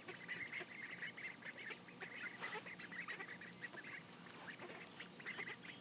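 Khaki Campbell ducklings peeping faintly, many short calls overlapping in a steady stream.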